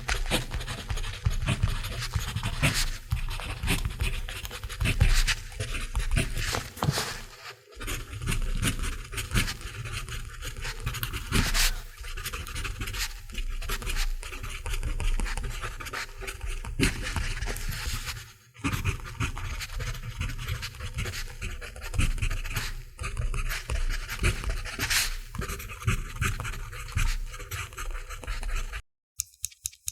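Mechanical pencil writing on paper: a continuous scratchy rasp of the lead, with brief pauses about eight and eighteen seconds in, stopping shortly before the end.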